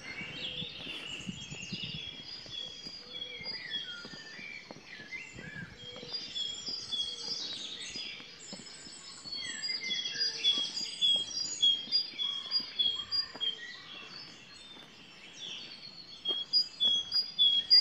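Dawn chorus of songbirds in trees, several birds singing over one another. A great tit repeats its rhythmic 'choo choo choo' phrase over and over, loudest near the end.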